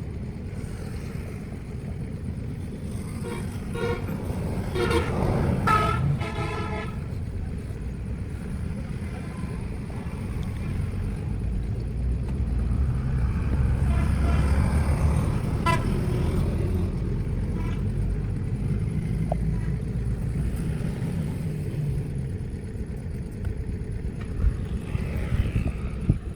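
Passing road traffic with a low engine rumble, and vehicle horns honking in a run of blasts about three to seven seconds in and again briefly around fifteen seconds.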